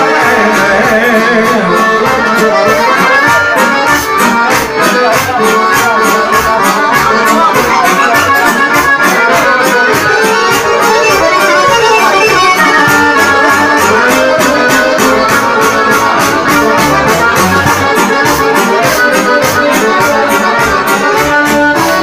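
Live Serbian kafana band playing an instrumental passage led by accordion, with a steady beat.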